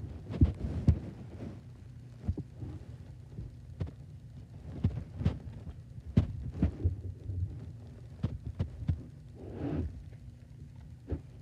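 Irregular soft low thumps and taps of playing cards being handled and people shifting on a mattress, over a low hum.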